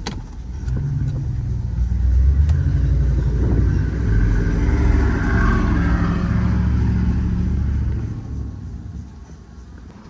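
A motor vehicle driving past: a low engine rumble swells over the first couple of seconds, stays loud for several seconds, then fades away about eight seconds in.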